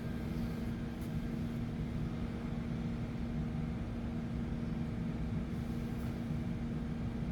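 Steady background machine hum with a constant low tone and no breaks.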